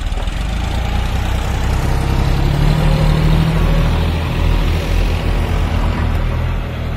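John Deere 5050D tractor's three-cylinder diesel engine running under load as it pulls a fully loaded trailer. It is loudest about three seconds in as it passes close.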